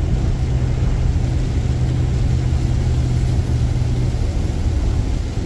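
Car engine and road noise heard from inside the cabin: a steady low drone with a hum that drops slightly about four seconds in.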